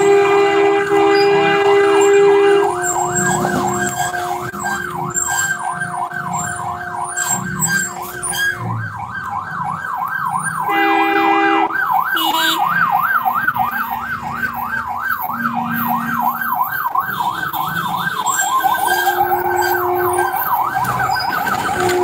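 An electronic siren yelping, its pitch rising and falling rapidly a few times a second, with long steady horn blasts at the start, around eleven seconds in and again near the end.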